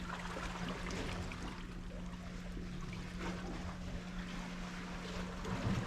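Seawater lapping and washing at the shoreline, a steady watery noise with a constant low hum underneath.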